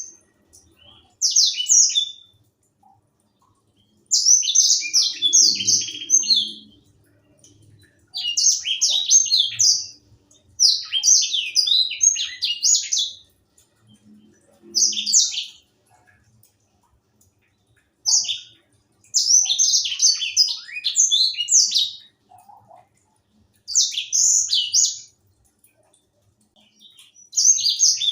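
A young white-rumped seedeater (grey singing finch, the 'sanger') singing in repeated bursts of rapid, high twittering song. Each burst lasts one to three seconds, with short pauses between them.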